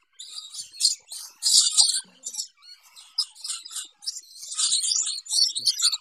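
Parrot chicks calling in a tub of wood shavings: many short, high, raspy chirps in irregular bursts, growing denser and louder over the last two seconds.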